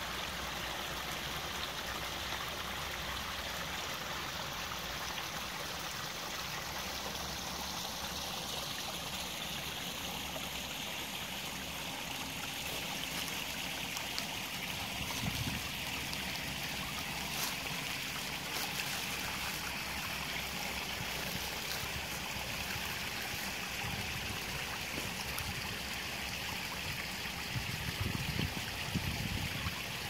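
Small woodland stream trickling and flowing steadily over rocks. Low rumbling on the microphone comes in near the end.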